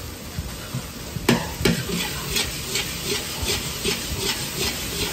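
Metal wok ladle stirring and pressing egg fried rice in a wok, scraping and knocking the pan in quick regular strokes, about three a second after a sharp knock about a second in, over a steady sizzle of the frying rice.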